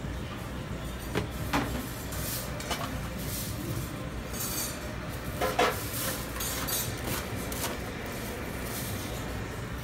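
Metal kitchen utensils clinking and knocking against a plate and cutting board: a few sharp clinks, the loudest about five and a half seconds in, over a steady low hum.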